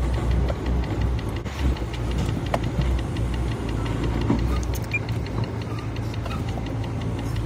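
Semi-truck's diesel engine running as the truck rolls slowly, heard from inside the cab: a steady low drone with light ticks and rattles over it.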